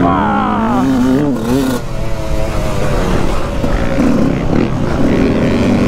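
Motocross bike engine, heard from on the bike, revving and falling back as the throttle is worked over rough dirt, with a short dip about two seconds in.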